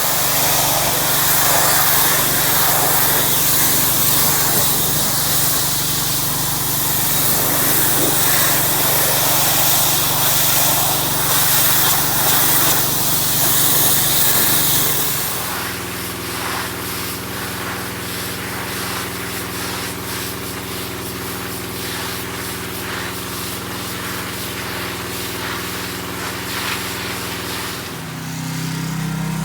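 Pressure washer's small petrol engine running steadily, with the high-pressure water spray hissing loudly over it. About halfway through the spray stops and the engine keeps running on its own with an even hum.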